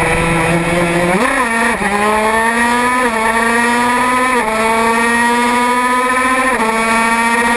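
Racing motorcycle engine heard from onboard, accelerating hard through the gears: its pitch climbs steadily and drops sharply at each upshift, four times.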